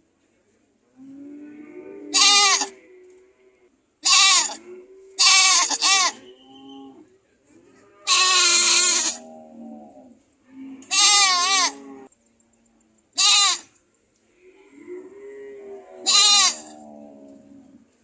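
Goats bleating. About seven loud, high, wavering calls come every one to three seconds, with quieter, lower bleats between them.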